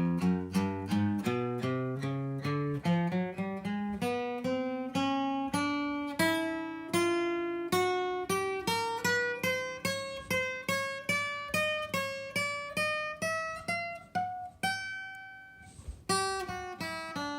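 Acoustic guitar playing an ascending scale one picked note at a time, about three notes a second, climbing from the low register to the high one. Near the end a high note is left to ring before a new run starts.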